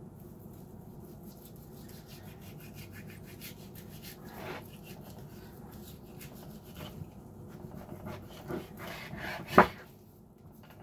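Kitchen knife sawing through a raw ribeye steak on a plastic cutting board in many quick scraping strokes, with a sharp knock on the board near the end.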